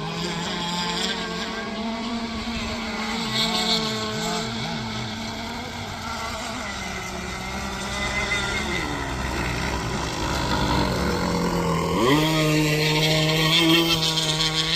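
Radio-controlled racing boats' motors running on the water, at times two at once at different pitches. The pitch wavers up and down, then rises sharply about twelve seconds in and holds steady as a boat speeds up.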